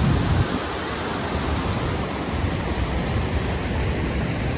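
Steady rush of the Keoti waterfall's falling water, with a brief low buffet in the first half second.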